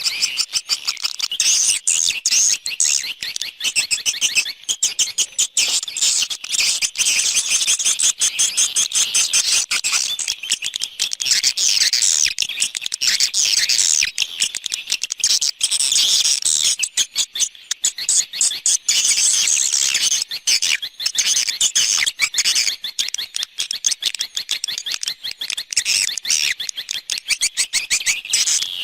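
Swiftlet lure recording (an 'external sound' for swiftlet houses): a dense, unbroken twittering of many swiftlets, with high-pitched chirps and clicks overlapping throughout.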